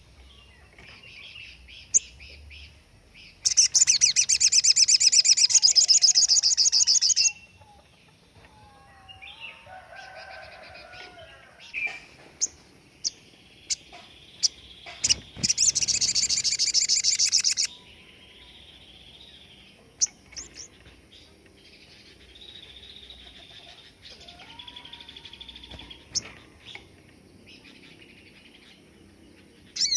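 Sogon bird song: two loud, very rapid rattling trills ('tembakan') of a few seconds each, about four seconds in and again around fifteen seconds, with softer chirps, sharp clicks and short gliding whistles in between.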